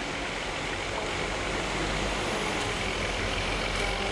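Heavy construction machinery running with a steady rushing noise and a faint engine hum underneath, as a concrete truck finishes loading a crane's concrete bucket.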